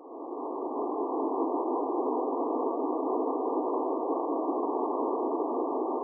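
A steady, muffled rushing drone of synthetic filtered noise, with no deep bass and no high hiss. It swells up at the start and fades away near the end.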